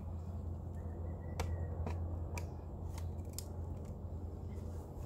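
A series of sharp clicks and taps, about six over two seconds, from handling an old Coleman lantern, over a steady low hum.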